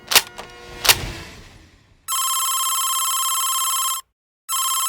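Two sharp clicks about a second apart with a short ringing tail, then a telephone ringing with a trilling electronic ring: one ring of about two seconds, a short pause, and a second ring starting near the end.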